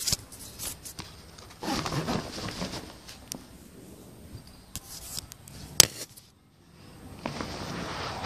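A cricket kit bag being zipped shut and handled: rasping runs of the zip and rustling fabric, with a few clicks and one sharp click about two-thirds of the way through.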